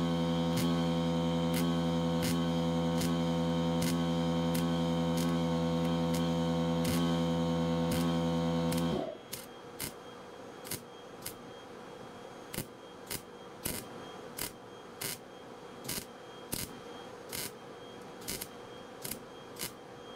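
Short sharp pops, about one or two a second, from tack-welding thin, rust-holed sheet steel. A steady electrical hum under them cuts off abruptly about nine seconds in.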